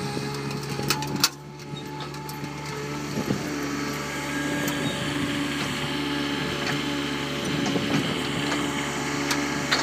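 Compact articulated loader's engine running steadily, with a couple of sharp knocks a little over a second in.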